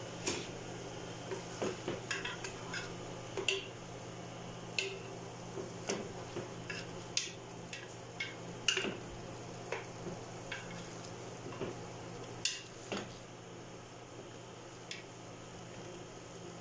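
Wooden spatula stirring chicken pieces through thick tomato sauce in an aluminium pot, with short, irregular knocks and scrapes against the pot. A faint sizzle of frying runs underneath. The knocks thin out about 13 seconds in.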